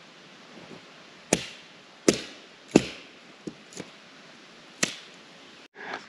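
Hatchet splitting a log into kindling on a wooden chopping stump: three sharp chops less than a second apart, two lighter knocks, then one more sharp chop.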